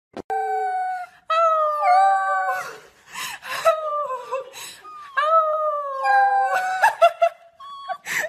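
Corgi puppy howling: a string of long, high howls that waver and slide in pitch, breaking into shorter yelps near the end.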